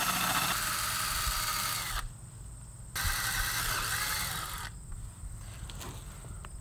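Cordless drill boring into the stripped Torx set screw that holds the brake rotor to the hub, drilling out its head with a 5/16 bit. The drill runs, stops for about a second, runs again for about two seconds and then stops, followed by a few light clicks of handling.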